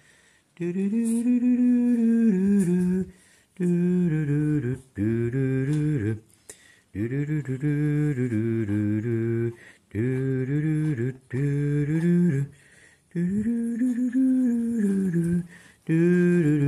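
Background vocal music: a low voice sings a wordless, chant-like melody in phrases of one to two seconds, with short pauses between them.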